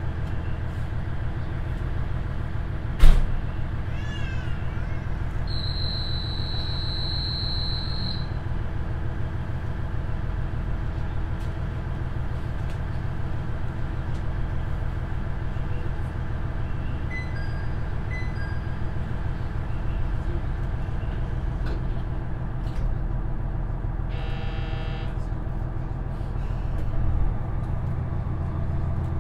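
KiHa 110 diesel railcar's Cummins engine idling steadily at a station stop, heard from inside the passenger cabin. A sharp click about three seconds in, a steady high tone for a couple of seconds, a few short beeps, and a brief buzz near the end.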